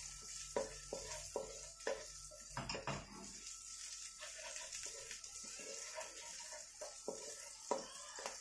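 Wooden spatula scraping and tapping against a nonstick wok while stirring browned minced garlic and chopped chili in a little oil, in irregular strokes, over a faint sizzle.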